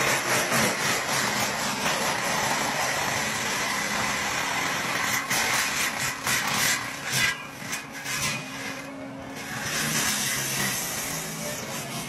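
Tracked forestry mulcher running hard, its spinning toothed drum grinding a standing pine trunk into chips. The noise is dense and loud, eases for a couple of seconds about eight seconds in, then builds again.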